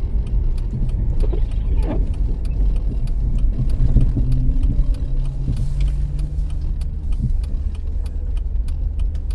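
Minivan's engine and tyre noise heard from inside the cabin while driving slowly on a snowy street: a steady low rumble with a constant hum. A brief rising swish comes about two seconds in.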